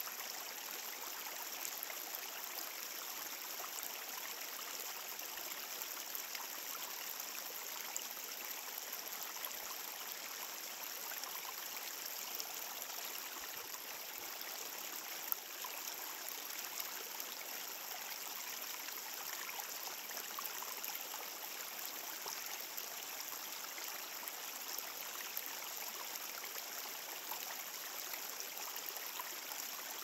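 Mountain creek running down a rocky slope: a steady, even rush and splash of water over stones.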